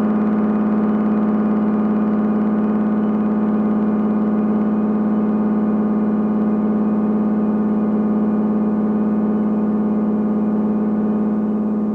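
Old Blood Noise Endeavors MAW pedal holding a steady synth-like drone on one low pitch, rich in overtones, with no drum hits heard.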